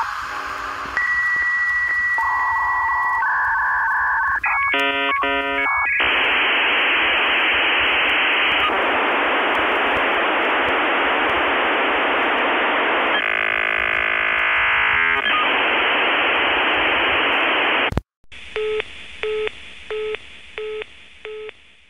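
Dial-up modem connecting over a phone line: a few steady tones and warbling handshake sounds, then a long loud burst of hiss. It cuts off suddenly near the end and gives way to a low telephone tone beeping about twice a second, fading away.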